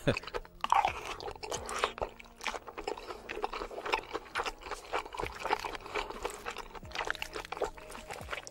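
Close-miked ASMR eating sounds: a man chewing a mouthful of pasta shells and beef in sauce, a dense run of wet smacks and quick clicks with no steady rhythm.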